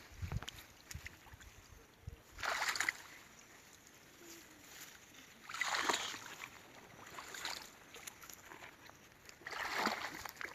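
Water splashing in three short bursts a few seconds apart, with a few dull low knocks in the first couple of seconds.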